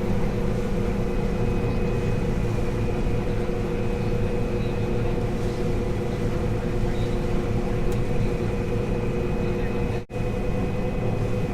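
Combine harvester running steadily while cutting soybeans: a constant machine drone with several steady whining tones, briefly cutting out about ten seconds in.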